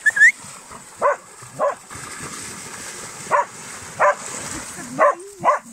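A dog barking repeatedly, about six short barks spread over a few seconds, over the noise of dogs splashing through a shallow stream.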